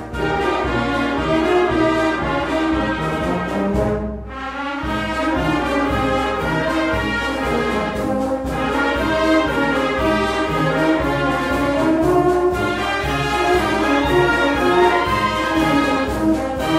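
A brass band plays a hymn march: a brass melody over a steady bass beat, with a short break in the music about four seconds in.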